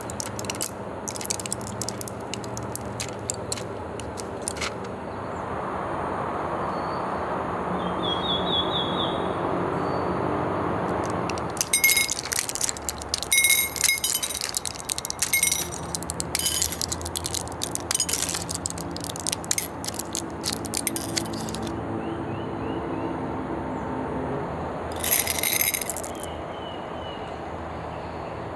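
Thin foil blister trays crackling as candy-coated chocolate buttons are pushed out through the foil. The buttons drop and clink onto a ceramic plate in quick clusters of sharp clicks with a brief ring, busiest through the middle of the stretch and once more near the end.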